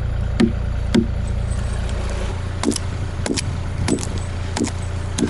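A hatchet struck again and again into the bark of a felled pine log, about ten sharp knocks at irregular spacing, some in quick pairs, as marks are chopped for bucking lengths. A machine engine runs steadily underneath.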